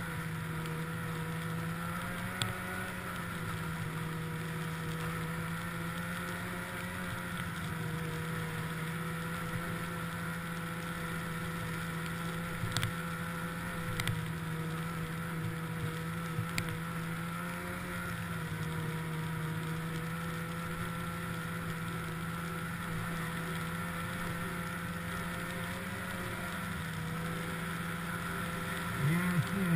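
Snowmobile engine running at a steady trail-cruising speed, a nearly constant tone that rises and falls slightly, with a few brief knocks along the way. Near the end it gets louder and wavers up and down in pitch.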